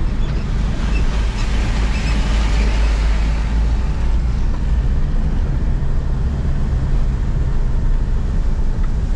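Vehicle engine and tyres on a dirt road, heard from inside the cabin as a steady low rumble. A louder rushing noise swells and fades between about one and three seconds in as the vehicle overtakes a flatbed truck.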